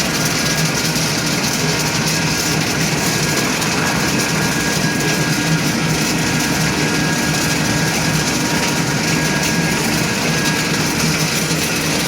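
Wood pellet plant machinery running continuously, a loud steady mechanical drone with a constant hum.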